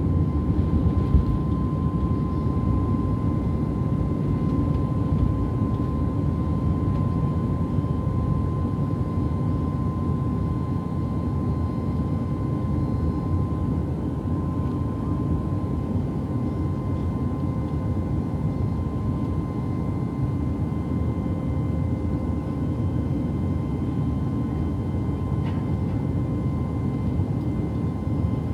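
Airliner cabin noise: a steady rumble of the engines and airflow, with a thin constant whine, holding even.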